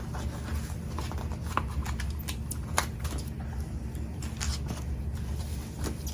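Hands handling packaging and items: scattered soft clicks and rustles, over a steady low hum.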